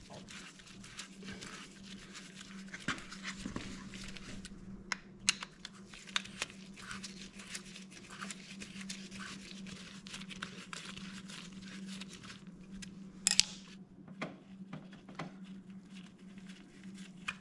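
Faint hand-work noises from a Honda Gold Wing GL1500 front brake caliper as a T-handle hex wrench unscrews its pad screws: scattered small metal clicks and the rustle of nitrile gloves, with one sharper click about three-quarters of the way through. A steady low hum runs underneath.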